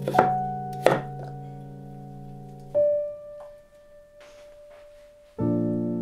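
Soft piano music with held chords and single notes. Twice within the first second, a kitchen knife chops through pumpkin onto a wooden cutting board with a sharp knock.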